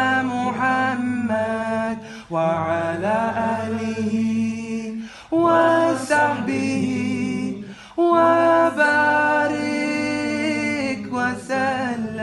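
A man singing a salawat a cappella, drawing the words out in long melismatic phrases, with short breaks between phrases about two, five and eight seconds in.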